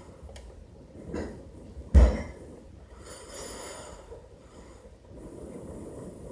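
A softer knock just after a second in, then a sharp, loud thump about two seconds in, followed by a brief rustling hiss.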